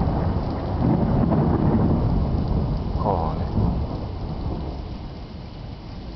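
A long roll of thunder rumbling, dying away over the last few seconds, with rain falling.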